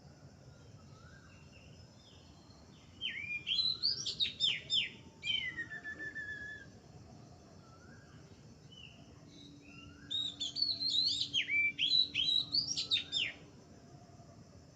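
A songbird singing two bursts of rapid, varied high notes, each about three to four seconds long, about three seconds and ten seconds in. The first burst ends in a drawn-out falling whistle. Fainter short chirps from other birds repeat in the background throughout.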